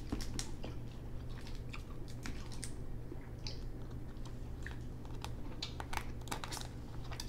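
Someone eating steamed blue crab: chewing, with scattered small clicks and crackles as the crab is picked apart, over a faint steady low hum.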